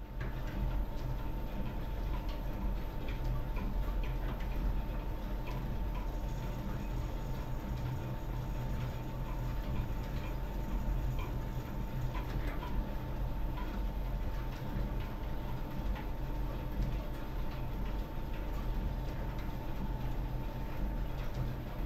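Overhead line shafting and flat belts running over their pulleys: a steady low hum and a faint steady whine, with a scatter of light ticks.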